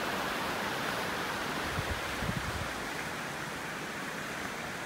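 River rapids rushing: a steady whitewater roar of fast water over rocks.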